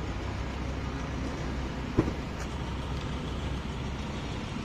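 A Mahindra Scorpio N's driver's door shutting once, a single short knock about two seconds in, over a steady low rumble.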